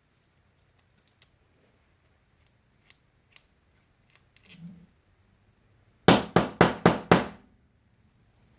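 Small parts clicking faintly, then five quick sharp knocks about six seconds in, as the pedal parts are worked and knocked against a hard surface during reassembly.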